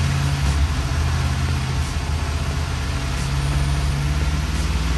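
Ford E-450's 7.3-litre gasoline V8 running steadily at about 2,000 RPM to circulate fresh oil just after an oil change.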